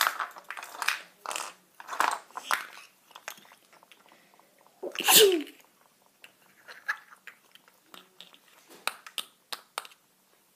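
A person making a run of short breathy mouth noises, with one loud burst that falls in pitch about five seconds in, followed by faint scattered clicks and taps.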